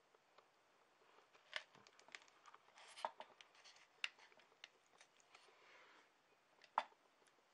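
Near silence: room tone with faint scattered clicks and brief rustles of handling. The small test motor is not running.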